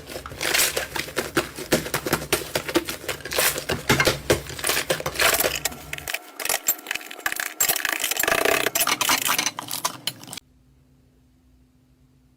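Slime being pressed and kneaded by hand, giving dense, rapid crackling and clicking. The sound changes at about six seconds and stops about two seconds before the end, leaving near silence.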